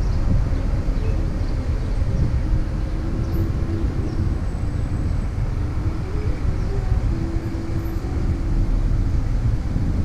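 Wind rumbling steadily on the microphone of a camera worn by a rider on a moving Inmotion V12HT electric unicycle, with a faint hum that comes and goes.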